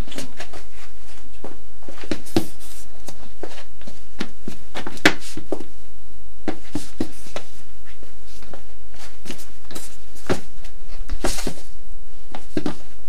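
Irregular knocks and thuds of heelys shoes stepping and landing on a hard floor, over a steady electrical hum.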